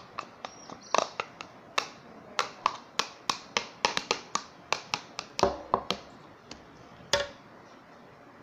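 Homemade slime being worked by hand, giving an uneven run of sharp clicks and pops, about two or three a second, that stops about seven seconds in.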